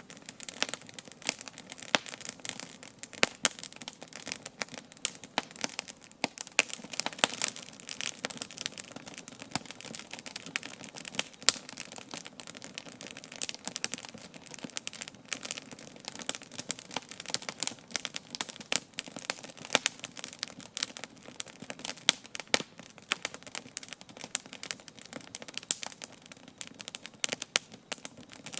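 Wood campfire burning with constant crackling and snapping, dense irregular pops of burning wood.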